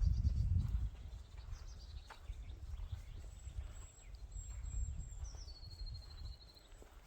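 Forest birds singing high, rapid trills: one falls in pitch about two seconds in, and a longer one steps down in pitch near the end. Under them runs a low wind rumble, strongest in the first second, with soft footsteps on the forest floor.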